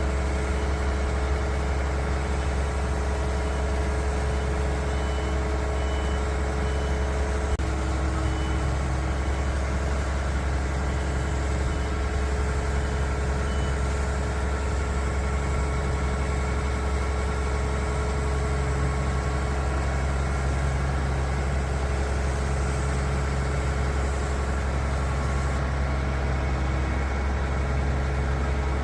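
Junjin JJ-H5017 concrete pump truck's diesel engine running steadily, with a faint, high on-off beeping through the first half.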